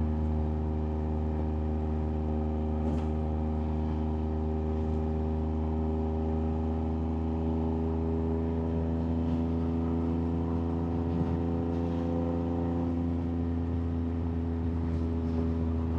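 Yamaha MT-09's three-cylinder engine running under way at a steady speed, its note holding nearly constant throughout.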